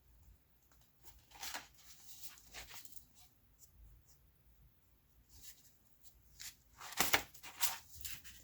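Hardcover books being lifted and handled: short rustles and scrapes of paper covers sliding against each other, the loudest two about seven seconds in.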